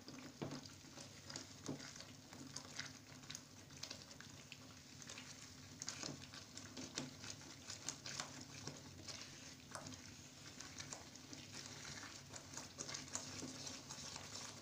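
A spoon stirring and scraping wet semolina halwa in a non-stick frying pan, with irregular light clicks against the pan and a faint sizzle as the sugar syrup cooks off over a high flame.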